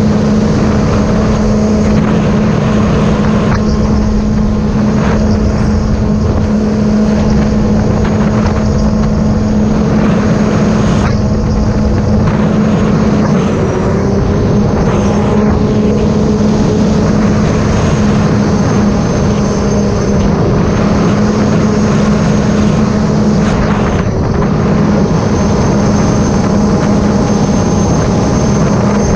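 Supercharged three-cylinder Rotax engine of a 2018 Sea-Doo RXP-X 300 jet ski, fitted with a free-flow exhaust, running under way at a steady cruising speed. It holds a constant drone and eases off briefly twice.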